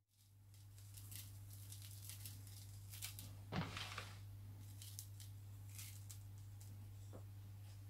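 Faint light rustling and ticking of coarse dry spice mix being tipped from a plate onto meat in a plastic tub, with one slightly louder knock about three and a half seconds in, over a steady low hum.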